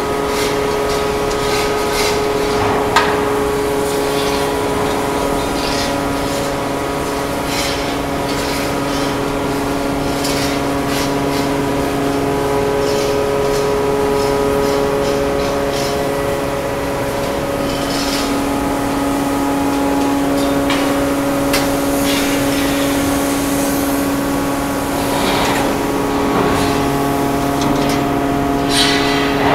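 A 3000-ton hot forming press running with a steady hum of several tones that shifts pitch a few times. Scattered scrapes and knocks of steel bars against the hot dished tank head sound over it.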